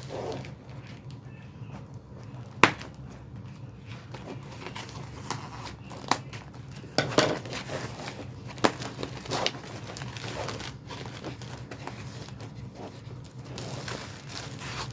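Protective packaging being unwrapped by hand: crinkling and rustling with several sharp snaps, the loudest a few seconds in.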